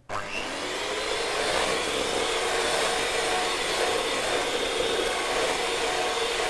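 Electric hand mixer switching on abruptly and running steadily, its beaters whisking creamed margarine and lemon juice in a stainless steel bowl.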